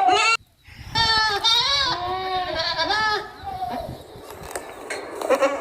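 Goats bleating: a short call that cuts off abruptly, then a long wavering bleat of about two seconds with overlapping calls, and another bleat near the end.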